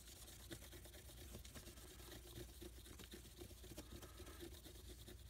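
Faint, quick back-and-forth rubbing of a paper towel working metal polish over a plated metal distribution block.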